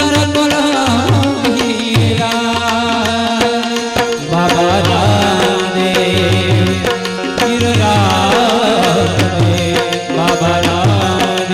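Gujarati devotional aarti bhajan music in an instrumental passage: a wavering, ornamented melody over harmonium with a steady hand-drum beat of about two strokes a second.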